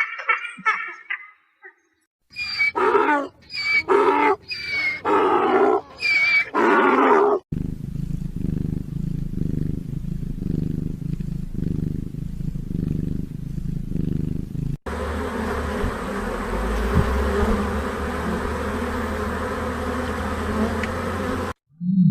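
A run of different animal calls edited back to back. First come five short pitched calls, then a low rumbling stretch with a slow pulse, then a steady humming stretch that cuts off suddenly near the end.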